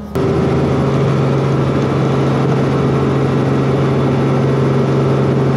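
Robinson R44 helicopter's piston engine and rotor running steadily, heard from inside the cabin: a loud, even drone with a constant low hum. It cuts in suddenly right at the start.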